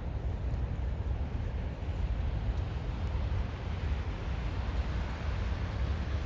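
Steady low rumble of outdoor background noise with a faint hiss above it and no distinct events.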